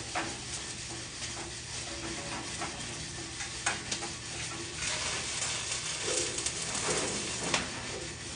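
Electric arc welding running steadily, with a few sharp pops along the way.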